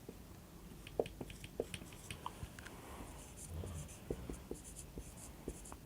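Someone writing by hand: faint, irregular scratching strokes and small taps of the writing tip.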